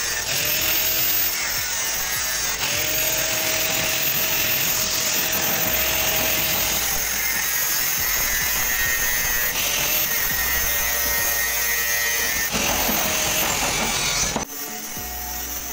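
Handheld electric angle grinder cutting through galvanized sheet metal, a steady grinding whine under load that cuts off sharply near the end.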